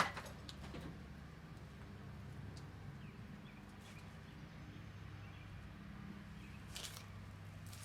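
Faint handling noise of small parts being sorted: a sharp click at the start, a few light ticks, and a short rustle near the end, over a steady low hum.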